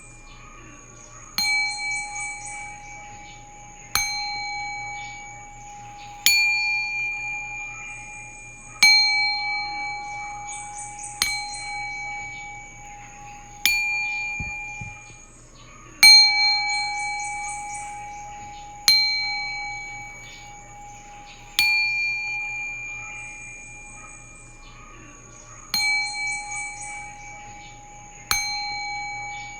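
Singing bowl struck about a dozen times, roughly every two and a half seconds, each strike ringing out on the same set of steady tones and slowly fading into the next.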